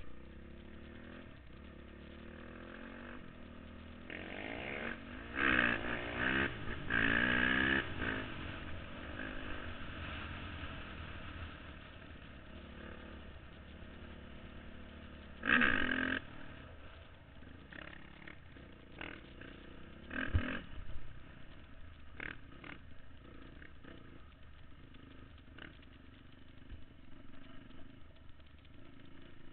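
ATV engine running on a dirt trail, revving up and down in a run of throttle bursts about four to eight seconds in and again once around sixteen seconds, with a few short knocks and rattles later on.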